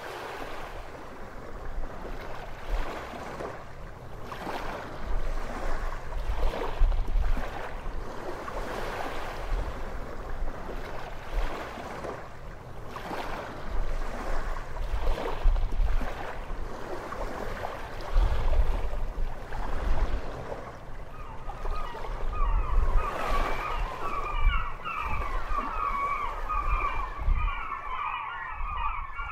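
Ocean surf washing and surging in waves, with heavy low rumbling in the swells. About three quarters of the way through, a high wavering tone joins and carries on to the end.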